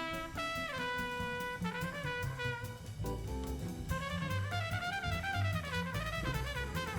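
Background jazz music with brass instruments over a steady drum beat.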